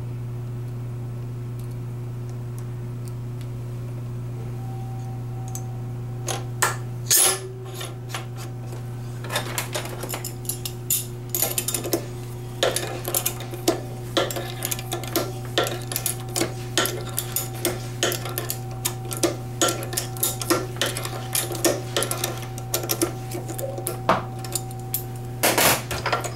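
Small steel injector parts and hand tools clinking and tapping against a steel fixture during fuel injector assembly, in irregular sharp clicks that start about six seconds in. A steady low hum runs underneath.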